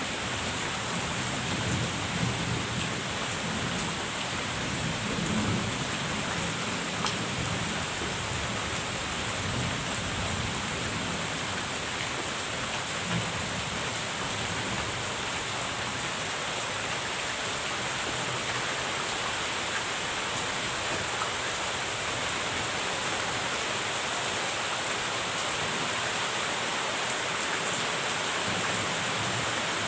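Steady rain falling, with low rolling thunder rumbling underneath through the first half, fading off later.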